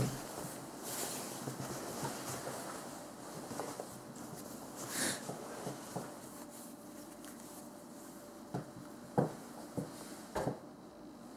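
Quiet room with faint movement and handling noises: a soft rustle about five seconds in, then four soft knocks close together near the end.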